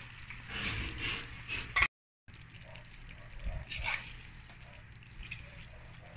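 Macaroni in tomato sauce simmering and bubbling in a metal pan while a spoon stirs it, with a sharp click just before a brief cut-out of all sound about two seconds in.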